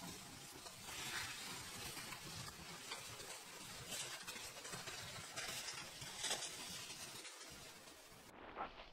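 Faint, steady outdoor hiss with a few soft rustles; the character of the noise changes abruptly near the end.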